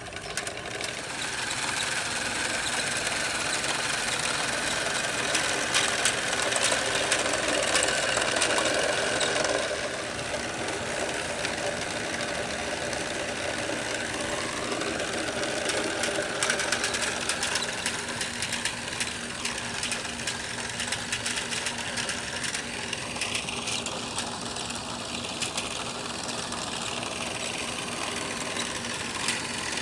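LEGO Power Functions XL motor driving a LEGO Technic combine harvester through a chain: a steady motor whine with rapid clattering from the plastic chain, gears and moving reel, conveyor and thresher. The whine drifts slowly in pitch in places as the motor works against the heavy model.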